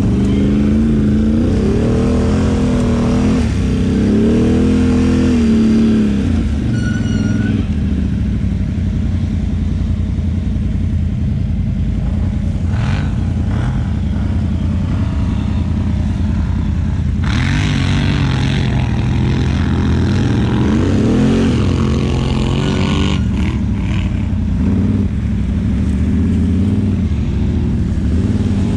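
ATV engines, among them a Can-Am Outlander XMR 850's V-twin, running and revving. The pitch rises and falls in surges near the start and again about two thirds of the way through.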